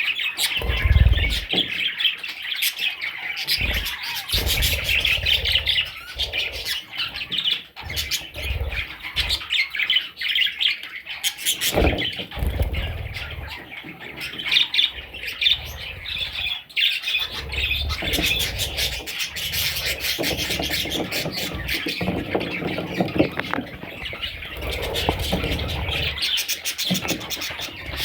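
A flock of parrots chirping and squawking continuously in a busy chatter, with irregular low thumps underneath.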